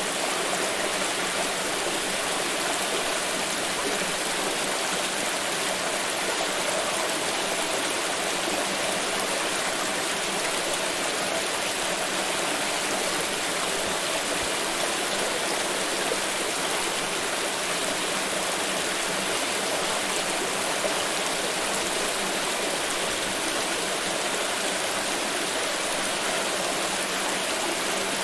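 A forest river flowing over rocks: a steady, unbroken rush of water.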